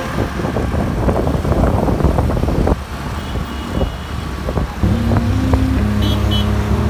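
Road traffic noise of cars and motorbikes on a busy road, heard from a moving vehicle. About five seconds in, a steady low hum with several held tones comes in.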